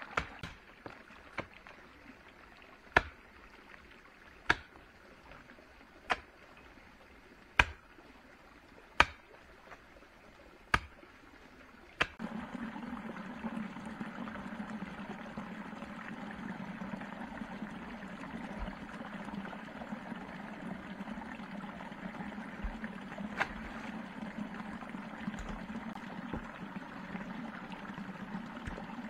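A series of sharp knocks, about one every second and a half, then from about twelve seconds in a steady rushing, watery noise.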